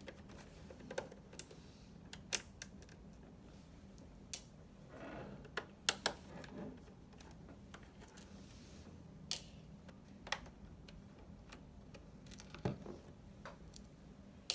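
Irregular sharp clicks and light taps, about a dozen spread out, as a Torx T8H security screwdriver works the screws out of a PS4's plastic casing.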